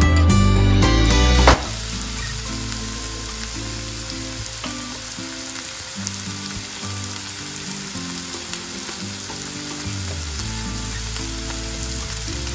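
Chopped tomatoes and vegetables sizzling in oil in a kadai, stirred with a wooden spatula at first, with soft background music underneath. Louder guitar music cuts off about a second and a half in.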